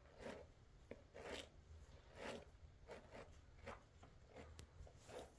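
Soft rustling swishes of yarn cord being pulled through and tightened into knots by hand while netting, about one a second.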